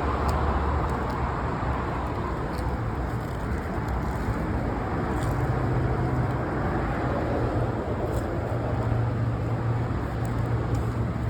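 Steady low rumble of motor vehicles, with a low hum that comes in about five seconds in and holds steady.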